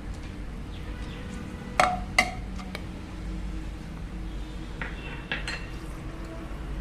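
A metal utensil clinking against a cooking pot while whole spices are being cooked in oil: two sharp ringing clinks about two seconds in, then a few lighter taps around five seconds, over a steady low hum.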